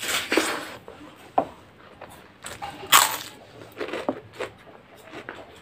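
Close-up eating sounds of a woman eating spicy tomato rice with her hand: chewing and short, sharp mouth noises with quiet gaps between them, the loudest about three seconds in.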